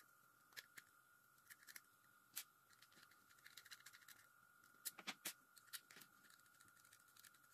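Faint, scattered clicks and light taps of small clipper parts being handled during a teardown, a few sharper ones about five seconds in.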